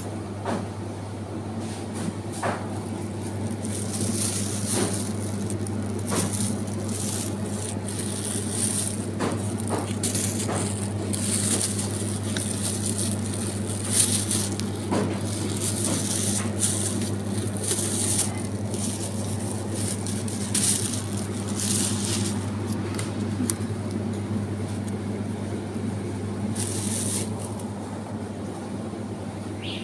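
Supermarket ambience: the steady low hum of open refrigerated produce display cases, with frequent short rustles and light clicks on top.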